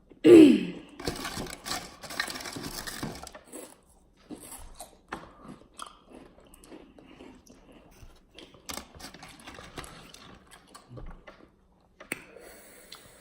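Spicy corn chips (Takis and Hot Fries) being bitten and chewed, with dense crunching for a couple of seconds and then scattered softer crunches. Right at the start comes a brief, loud, falling vocal sound.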